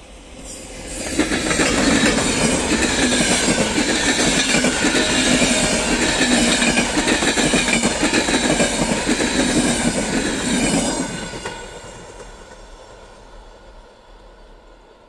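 Passenger train of locomotive-hauled coaches passing close by: wheels clattering and rumbling on the rails. It rises sharply about a second in, holds loud for some ten seconds, then fades away.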